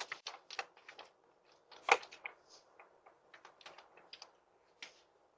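A string of irregular sharp clicks and light knocks, the loudest about two seconds in.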